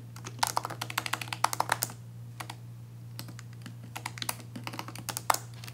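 Typing on a laptop keyboard: a quick run of keystrokes, a pause of about a second, then slower, scattered keystrokes, over a steady low hum.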